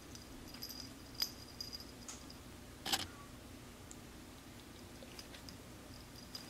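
Faint jingling of the metal tag on a cat's collar as the cat bats at a feather wand toy: scattered light tinkles and ticks, with one sharper click about three seconds in.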